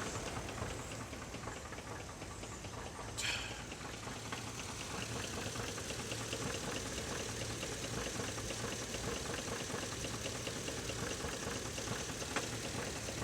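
GM 5.3-litre Vortec V8 running at idle with a steady, rapid, even knocking: rod knock. A brief louder noise comes about three seconds in, and a single click comes near the end.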